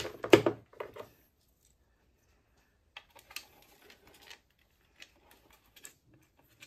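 Plastic mixer-grinder base plates handled on a workbench: a short clatter of knocks in the first second, then scattered light clicks and taps.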